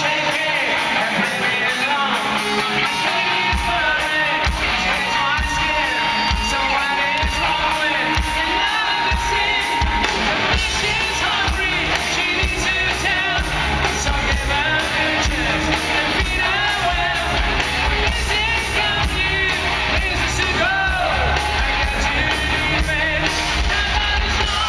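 Hard rock band playing live through an arena PA, heard from within the crowd: a lead singer's vocals over electric guitars, bass and drums, with the crowd yelling. The heavy bass and drums come in about three and a half seconds in.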